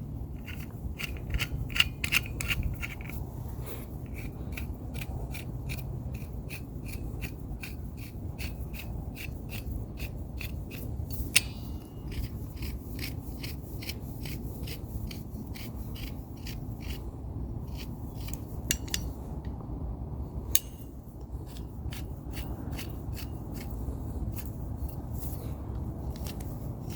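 Adjusting screw of a pair of locking pliers being turned by hand. Its threads scrape with a regular ticking, about two to three ticks a second, and it is still a little tight in places.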